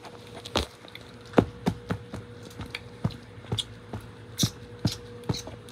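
Irregular light taps and thumps of plush toys being grabbed and moved about on a wooden floor, over a faint steady hum.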